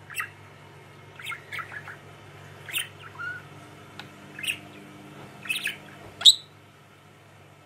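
Budgerigar chattering: a string of short, scattered chirps, the loudest about six seconds in, after which the bird falls silent.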